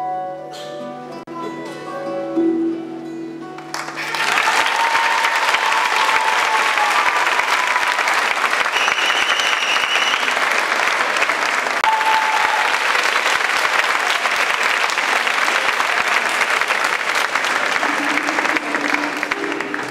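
The last notes of the music end about four seconds in, and a theatre audience then applauds steadily.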